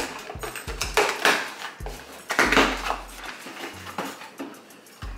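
A cardboard shipping box being slit open along its tape, then its flaps and the packaging inside rustled and handled in quick noisy bursts. Background music with a low bass line plays under it.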